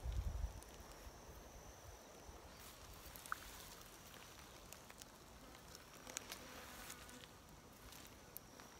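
Faint outdoor ambience: insects buzzing with a steady high tone, a single short chirp about three seconds in, and a few soft clicks and rustles of boots in low heath vegetation. A brief low rumble at the very start.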